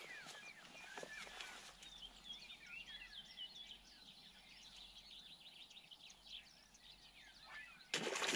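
Birds singing and chirping over quiet riverside ambience, many short rising and falling calls. Near the end a sudden loud rush of noise starts, the moment an asp strikes the surface lure.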